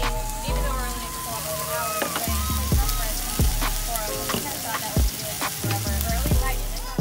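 Chicken and steaks sizzling on a hot flat-top griddle, under background music with a steady beat.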